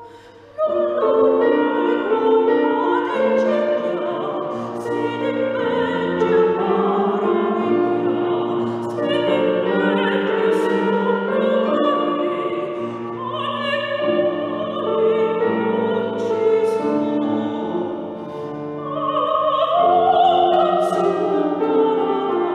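Operatic soprano singing a Sicilian-language art song with grand piano accompaniment. The voice and piano come in sharply about half a second in after a brief hush, and the singing eases briefly about three-quarters of the way through before swelling again.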